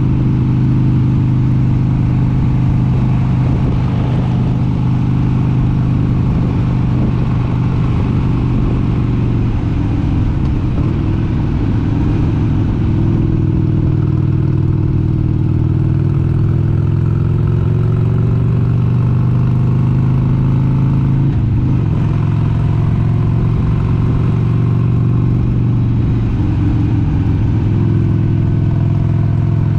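1996 Harley-Davidson XLH883 Sportster's 883 cc air-cooled V-twin running under way at cruising speed, its note steady, with wind rumble on the microphone. Through the middle the engine note rises and falls a little, with a brief break about two-thirds of the way in.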